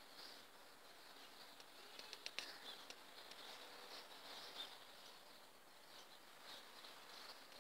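Near silence: faint background hiss with a few soft clicks a little over two seconds in.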